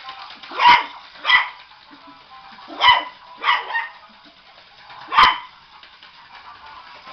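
Yorkshire terrier barking: five short, sharp barks at uneven intervals, with music playing underneath.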